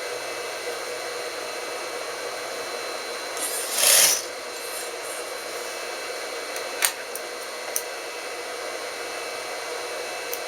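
Sewing machine motor running with a steady hum. About four seconds in comes a short, louder rushing burst, and there are two sharp clicks a second apart around seven to eight seconds.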